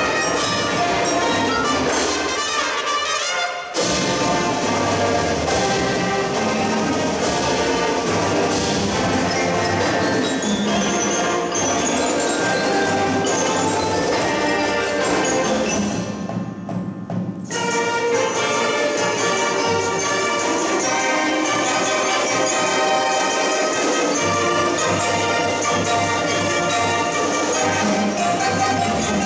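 Marching band playing: brass carrying the melody over drums and mallet percussion. The sound thins briefly about sixteen seconds in, then the full band comes back in.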